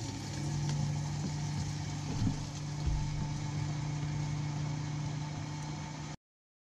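Fuel transfer pump running with a steady hum as fuel flows through a metered nozzle into a plastic jerry can; the pump is a slow one. The sound cuts off suddenly near the end.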